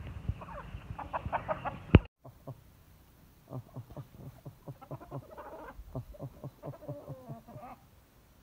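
Domestic chickens clucking as they move around the yard, in short repeated calls. A single sharp knock about two seconds in is followed by a brief gap before the clucking resumes.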